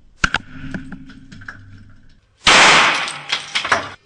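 A single shot from a 3D-printed Liberator plastic pistol about two and a half seconds in: a very loud bang that dies away over more than a second. It is preceded by two sharp clicks and a faint hum.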